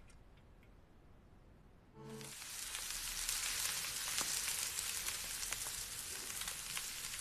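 Steak searing on a ridged grill pan: a loud sizzle full of crackling spatters, which starts abruptly about two seconds in after a quiet start.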